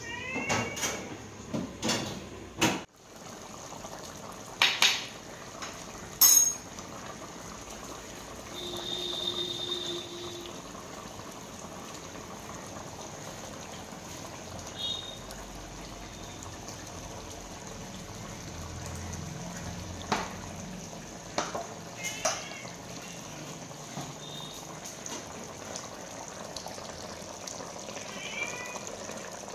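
Fish curry simmering in a clay pot, a steady low bubbling, with a few sharp knocks of pots and utensils in the first seconds. A cat meows at the start and a few more times later on.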